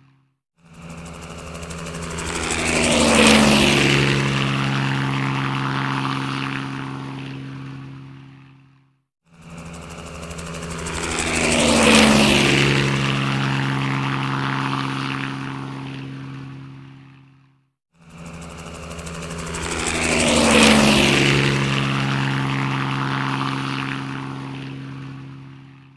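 Helicopter flying past, the same fly-by heard three times in a row. Each pass swells up, is loudest about three seconds in with a drop in pitch as it goes by, then fades away and breaks off into a brief silence before the next.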